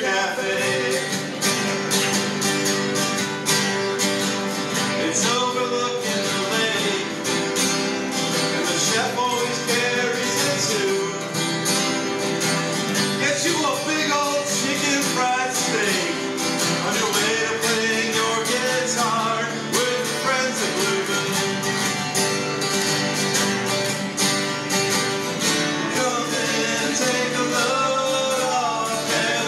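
Three acoustic guitars strummed together in a live country song, with a man singing the melody over them.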